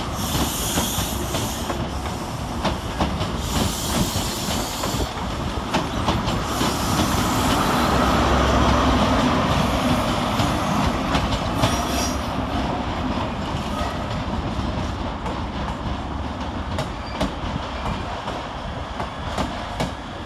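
Diesel High Speed Train with Class 43 power cars pulling out. The engines run under a dense rumble of wheels on the rails, and high-pitched squeals come and go. It grows loudest about eight to ten seconds in, as it passes, then eases.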